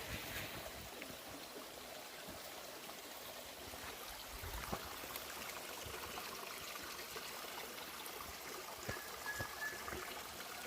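Faint steady rush of a small stream flowing, with a few light clicks.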